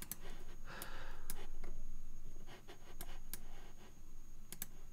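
A few sharp, isolated computer mouse clicks as a preset is picked from a dropdown menu, with a soft breath into the microphone about a second in.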